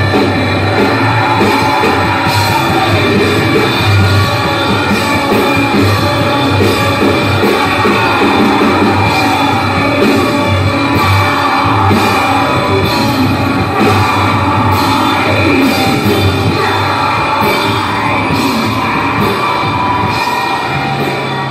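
Live rock band playing loudly through a club PA, with drums and cymbals over a pulsing bass, heard through the camera's microphone.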